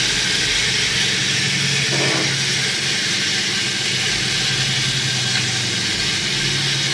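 A steady low hum under a constant hiss, unchanging throughout.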